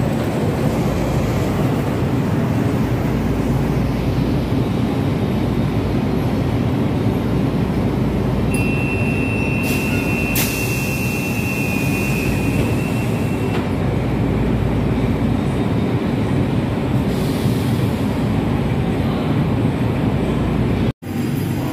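Manila LRT Line 1 light-rail train running: a steady rumble of the car on the rails, with a high, steady wheel squeal from about nine to thirteen seconds in.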